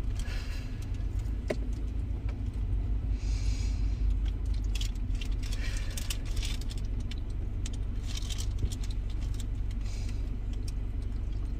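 Low steady rumble inside a car, with a woman in labour breathing out slowly through pursed lips during a contraction: about five long, breathy exhalations.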